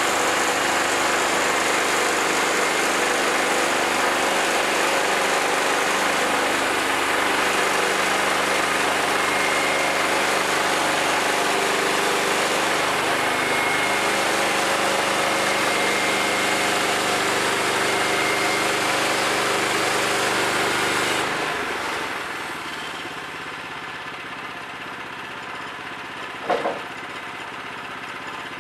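Portable bandsaw sawmill's small gas engine running steadily as the band blade cuts along a Douglas fir log. About 21 seconds in the sound drops markedly quieter and stays lower, with a brief knock near the end.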